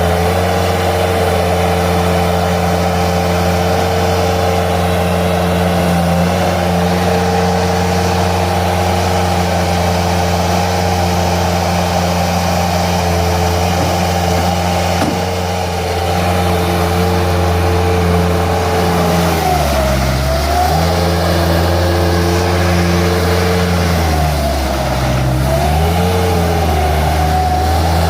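Bobcat S130 skid steer's diesel engine running steadily at high revs; about two-thirds of the way through, and again a few seconds later, its pitch sags briefly and climbs back.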